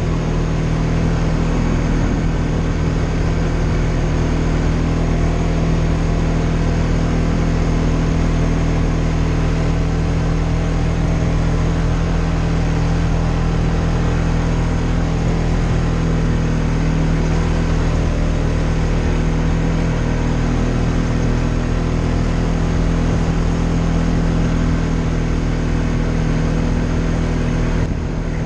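Polaris Sportsman ATV engine running steadily under way, a constant drone whose pitch holds nearly level.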